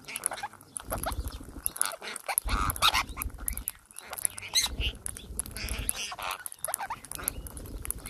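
Plum-headed parakeets pecking rice grains off a hard floor, their beaks tapping in rapid irregular clicks, with short chirping calls scattered throughout. Several stretches of low pulsing rumble come and go beneath.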